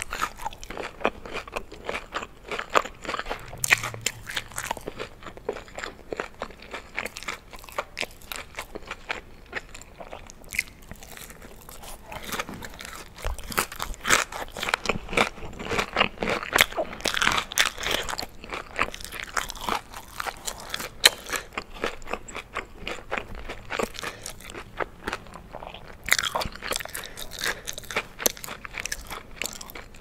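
Close-miked chewing of a breaded boneless chicken wing dipped in ranch, with a constant run of quick crunches and crackles, busiest in the middle and again near the end.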